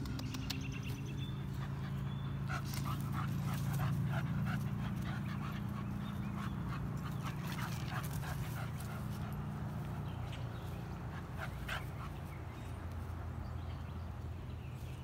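A pit bull whimpering in short, repeated whines, with a steady low drone underneath that swells about four seconds in and eases off later.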